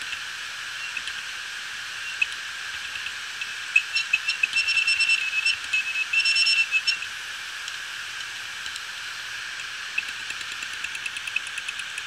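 Seagate Barracuda 7200.11 hard drive running with its cover off: a steady spindle whir, with the read/write head actuator chirping and clicking in a rapid stutter from about four to seven seconds in and lighter ticking near the start and end. These are the funny noises of a drive already dead from the SD15 firmware fault.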